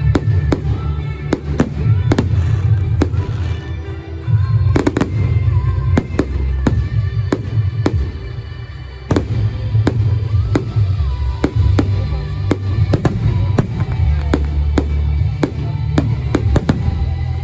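Aerial fireworks shells bursting one after another, sharp bangs and crackles at an irregular pace of about one or two a second, over loud music with a heavy bass line.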